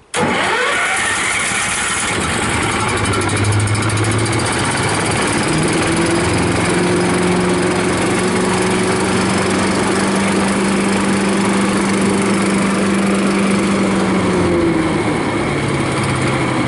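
Briggs & Stratton Vanguard 13 hp petrol engine of a Terra-Vac Colt paddock vacuum starting on the key with the choke on and catching at once, then running steadily with the suction fan. Its speed picks up about five seconds in and drops back lower near the end.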